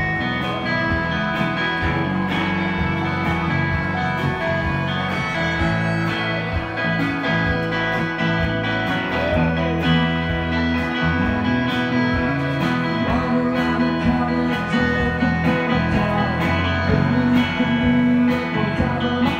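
Live country-rock band playing: acoustic archtop guitar, electric bass, fiddle and drums, over a steady drum beat.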